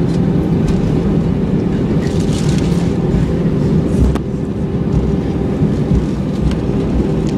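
Cabin noise of an Airbus A320-216 on the runway during landing: a steady rumble and hum from its CFM56-5B engines and the airframe, heard from inside the cabin beside the wing. A single click about four seconds in, after which the noise drops a little.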